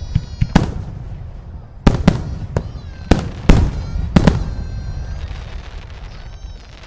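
Fireworks going off: a quick run of about nine sharp bangs, some in close pairs, over the first four and a half seconds. Then the rumble and echo die away.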